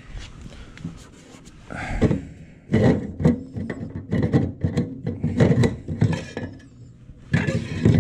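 Irregular knocks, scrapes and rubbing, as of hard objects being moved and handled, quiet at first and then busy from about two seconds in.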